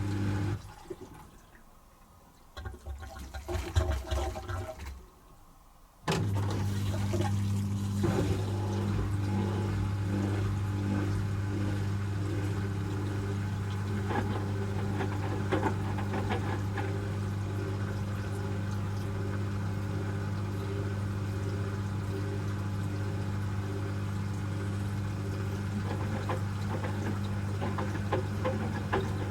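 Asko Quattro W6098X washing machine mid-cycle: a steady mechanical hum with water rushing and swishing. It stops about half a second in, leaving a pause broken only by a brief bout of water sloshing, then starts again abruptly about six seconds in and runs steadily on.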